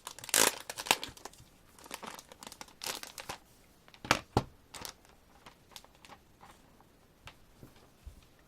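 Packaging crinkling and rustling as a CD album is handled, with a few sharp clicks and knocks, busiest in the first half and dying down to light taps near the end.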